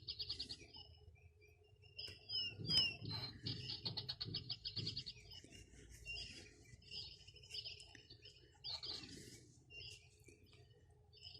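A small bird chirping and singing in rapid repeated trills and short gliding chirps, with faint rustling and soft knocks between about two and five seconds in.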